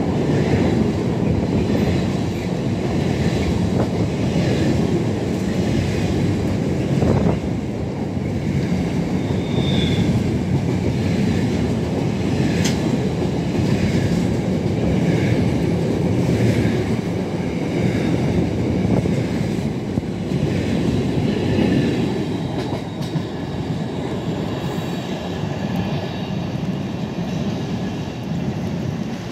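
Container wagons of an intermodal freight train passing at speed: a steady rumble of wheels on rails with faint repeated clicks, easing a little near the end.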